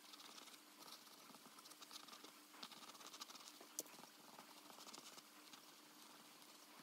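Faint scratching of a mechanical pencil's lead on paper in quick, repeated sketching strokes, over a faint steady hum, with one sharp tick about four seconds in.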